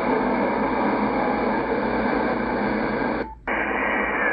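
Static and hiss from a Yaesu FTdx10 shortwave receiver tuned between stations on the 19-metre band. A little over three seconds in the audio drops out for a moment as the mode is switched to upper sideband, and the hiss comes back duller.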